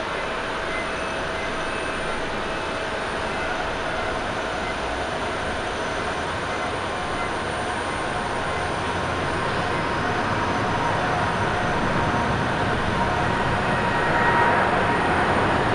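Jet engines of a Boeing 787-9 Dreamliner, Rolls-Royce Trent 1000 turbofans, at high thrust as the airliner begins its takeoff roll: a steady rushing jet noise with a few faint whining tones, growing louder over the second half.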